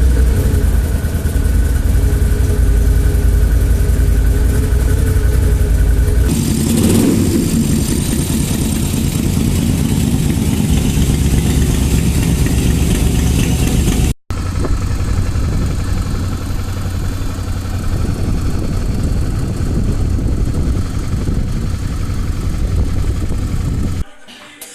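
Motorcycle engine running loud with a deep rumble, revved once about six to seven seconds in. An abrupt cut about halfway through leads to another engine running steadily, which cuts off near the end.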